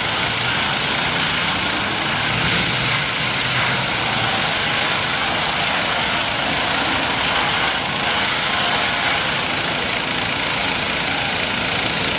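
Gas-powered pressure washer's small engine running steadily, with the spray of high-pressure water wands hitting a mud-caked truck.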